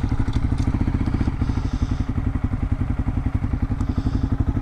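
Honda CRF250L dual-sport motorcycle's single-cylinder four-stroke engine running steadily with an even, rapid beat.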